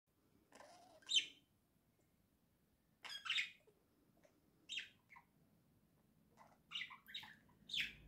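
Budgerigars chirping in short separate calls with pauses between. The loudest call comes about a second in, and a quicker run of chirps follows near the end.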